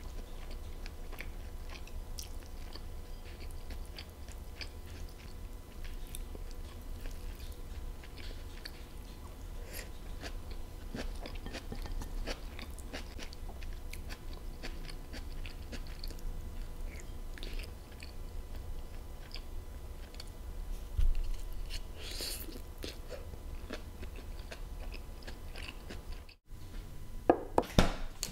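Close-miked chewing and biting of soft food, with faint clicks of chopsticks and a spoon against a ceramic bowl. Near the end a few sharp, loud clacks.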